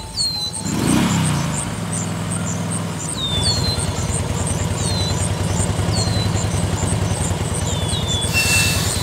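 Tractor engine starting about a second in, its revs dropping and settling into a steady chugging run. Short falling bird chirps sound over it, and a brief hiss comes near the end.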